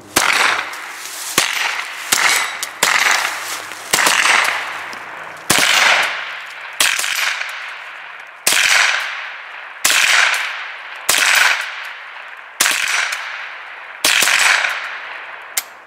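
.22 rimfire rifles firing a string of about a dozen shots at uneven intervals, each crack trailing off in a long fading echo.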